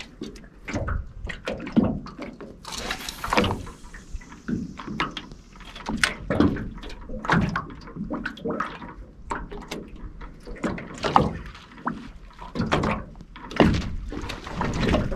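Irregular hollow knocks and slaps of small waves against the hull of an aluminium dinghy, with a brief hiss about three seconds in.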